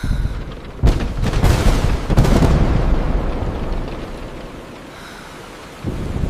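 A thunderclap cracks about a second in and rolls on as a long rumble, fading over the next few seconds, over steady rain. Another clap begins near the end.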